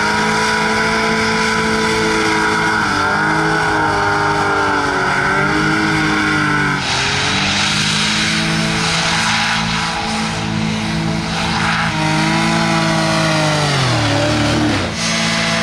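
Engine of a hovercraft, swapped for one of nearly 100 horsepower, running hard with its pitch wavering slightly. A rushing noise builds about halfway through, and near the end the engine winds down with a falling pitch.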